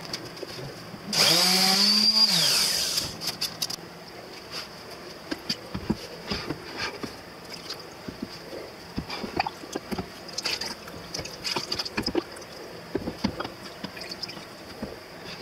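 Clear liquid poured from a glass over a wooden end-grain cutting board in a plastic tub, splashing and dripping in many small irregular spatters. About a second in comes a loud rushing pour, about two seconds long, with a wavering tone in it.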